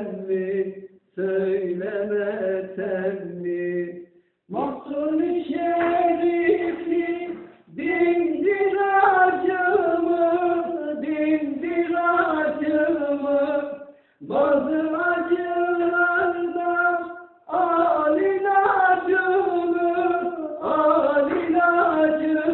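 A solo voice singing a Turkish folk song (türkü) unaccompanied, in long held, wavering notes, with short breaks for breath between phrases.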